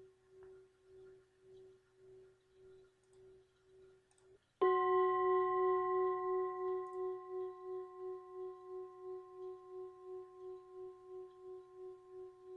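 A Tibetan singing bowl rings with a wavering, pulsing tone that fades away and stops about four seconds in. A bowl is then struck and rings out loud with several overtones, slowly fading with a steady wah-wah pulse.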